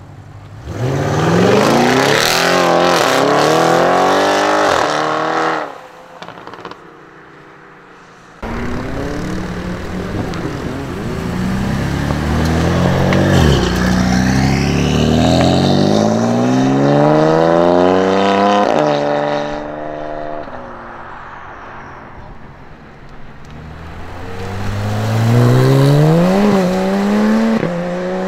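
Tuned performance cars accelerating hard one after another, engines rising in pitch and stepping down at each upshift: first an Audi RS6 Avant's twin-turbo V8, then a BMW M4's twin-turbo straight-six pulling through several gears, and near the end a Porsche 911 GT3's flat-six.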